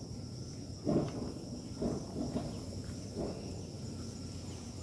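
Steady high-pitched drone of insects in the trees, with a few soft low thumps about once a second, the loudest about a second in.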